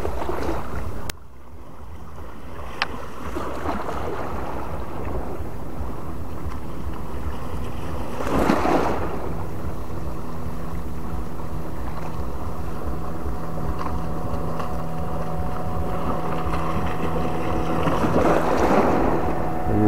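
Wind buffeting the microphone over water lapping at the shore, swelling in gusts about eight and eighteen seconds in. A steady low motor hum runs underneath, strongest in the second half.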